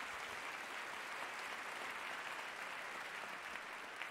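Audience applauding, a steady dense patter of clapping.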